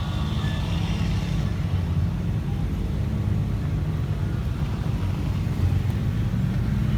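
Vehicle engine running while driving, with a steady low rumble.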